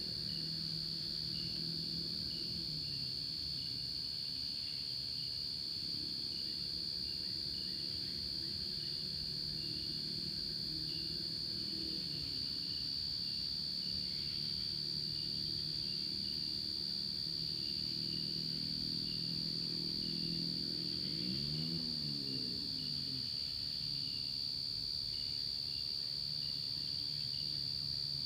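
Night insects singing: a steady, high-pitched cricket drone with a fainter chirp repeating at a regular beat. Under it runs the low hum of a distant engine, which rises and falls once about three-quarters of the way through.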